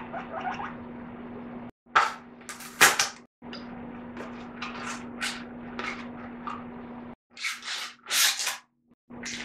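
Rice being washed by hand in a bowl of water: a series of loud swishing, rubbing bursts of wet grains, strongest around two to three seconds in and again near the end, over a steady low hum.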